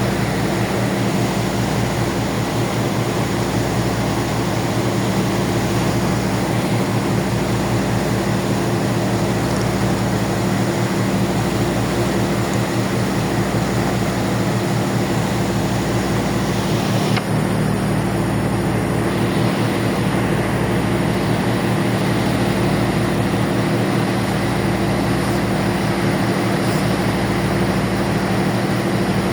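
Ferry's engines running with a steady, unchanging low drone.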